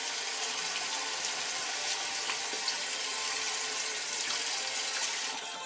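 Water running from a tap in a steady, even hiss, dropping away near the end.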